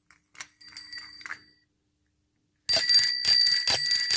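Rotary bicycle bell with a lever-driven geared striker mechanism under a metal dome. It gives a faint ring about half a second in. About two and a half seconds in it breaks into loud, rapid ringing at about five strikes a second as the lever is worked, a sign that the repaired mechanism now spins the strikers properly.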